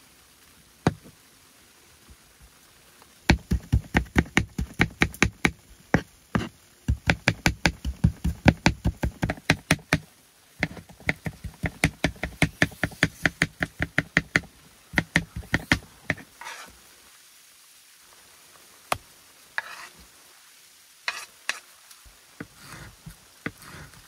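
Knife chopping on a cutting board in quick, even strokes, about five a second, in two runs with a short pause between, then a few single knocks near the end.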